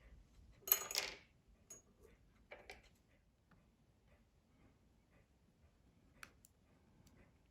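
Small hard objects clicking and clinking as tools and phone parts are handled on a work surface, with a short rattly clatter about a second in, a smaller one near three seconds, and a single sharp click a little after six seconds.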